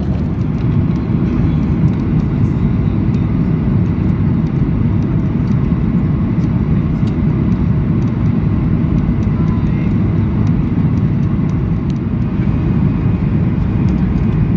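Steady low rumble of a Boeing 737-800's CFM56 engines and rushing air, heard inside the passenger cabin during the descent with flaps extended.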